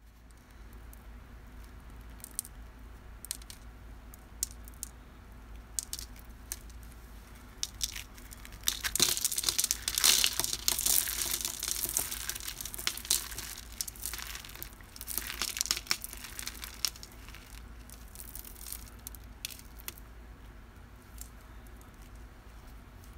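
Cornstarch being crunched and crumbled, with scattered sharp crackles. The crackles become a dense run of crunching from about nine seconds in to about seventeen, then thin out again.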